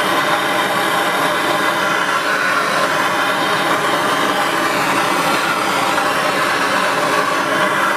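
Handheld gas torch burning steadily, preheating steel casting tongs before a pour. It starts suddenly and then holds at one even level.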